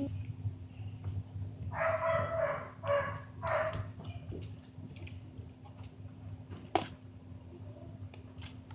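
A small dog giving three short yips about two to four seconds in, then a single sharp knock a few seconds later.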